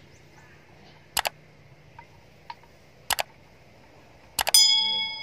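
Three pairs of sharp knocks about two seconds apart. The last pair is followed by a clang of struck steel that rings on for about a second, fading.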